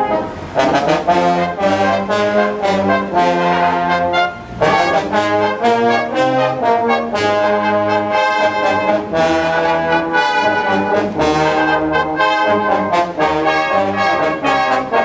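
Brass band playing: cornets, trombones and tubas in held chords with a moving low bass line, with a brief break between phrases about four and a half seconds in.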